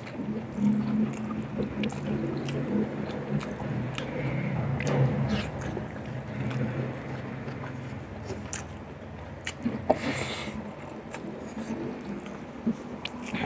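Close-miked chewing and mouth sounds of a man eating rice and boiled beef by hand, with wet lip smacks and clicks throughout. A low hum runs through the first half, and a louder breathy burst comes about ten seconds in.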